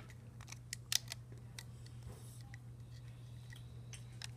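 Small, irregular clicks and taps of a plastic hook working rubber bands on a plastic Rainbow Loom's pegs, the clearest about a second in, over a low steady hum.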